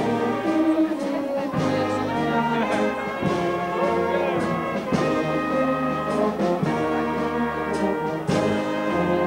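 A wind band of clarinets, saxophones and brass playing live. Held chords over a steady bass line change every second or two.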